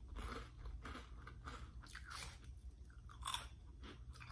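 Flamin' Hot Cheetos being crunched and chewed close to the microphone: a run of irregular crisp crunches, the loudest a little after three seconds in.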